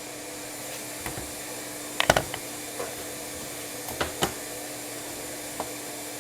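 Clamps being set on a piece of wood: a handful of sharp knocks and clicks, the loudest cluster about two seconds in and a quick pair about four seconds in, over a steady background hum.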